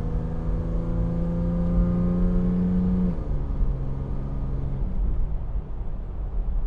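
The 3.4-litre V6 of a 1996–2000 Toyota 4Runner through a MagnaFlow Overland Series stainless cat-back exhaust, heard from inside the cabin: a steady exhaust drone that rises slightly in pitch, drops to a lower note about three seconds in, and settles into a low rumble about five seconds in.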